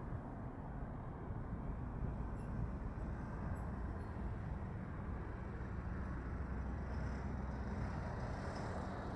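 Jet airliner's engines at takeoff thrust, heard from a distance as a steady low rumble during the takeoff roll and rotation.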